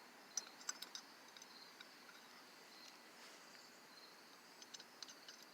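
Near silence with a few faint, light clicks of small screws and metal parts being handled: a handful about half a second to a second in and a few more near the end.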